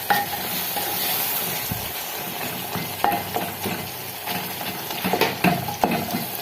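A spoon stirring tomatoes, potatoes and carrots frying in a pot: a steady sizzle, with a few sharp knocks of the spoon against the pot.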